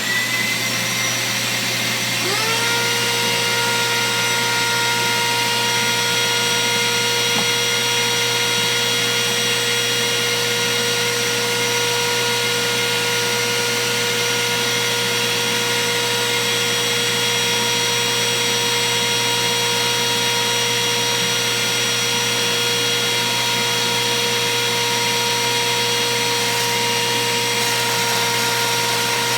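Table-mounted wood router motor spinning up with a rising whine, climbing again about two seconds in, then running steadily at full speed with a high-pitched whine.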